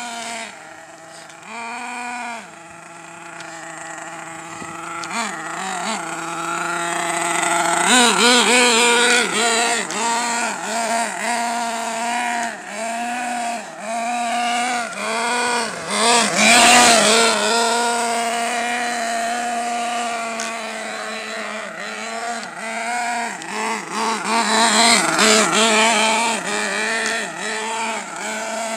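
Small nitro glow engine of an Ofna RC truck running, a buzzing whine that holds a steady low pitch at first, then from about eight seconds in revs up and down over and over as the truck is driven.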